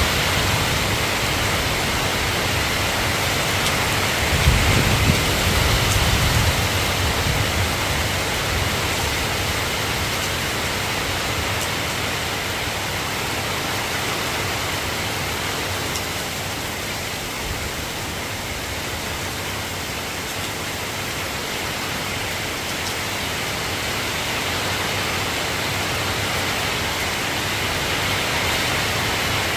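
Steady rain falling: an even hiss, with a brief low rumble about four seconds in.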